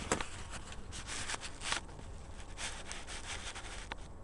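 Handling noise: rubbing and scraping on the recording device as it is moved, in several short swishes, with a sharp click near the end. Under it runs a steady low hum, the compressor vibration being recorded.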